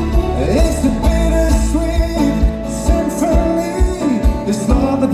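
Live folk-rock band playing an instrumental passage: plucked strings and guitar over a steady kick-drum beat.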